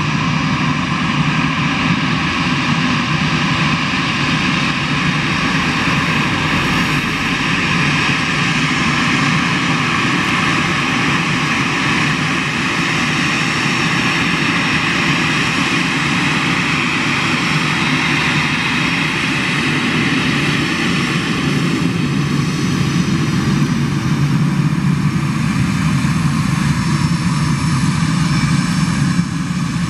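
Airbus A319 jet engines running at low ground power while the airliner taxis: a steady whine over a broad rumble, getting a little louder in the last few seconds.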